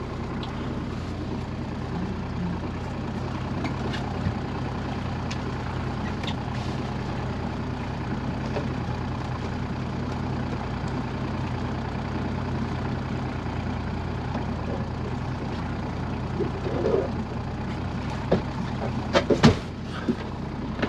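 Small boat's petrol engine running steadily at low speed. A few knocks and handling noises near the end.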